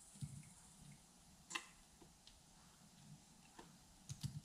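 A few faint, separate metallic clicks as the pinion cross-shaft and carrier of an open C2 Corvette differential are handled. The shaft is sliding out of the carrier, which the owner thinks means its retaining pin is broken.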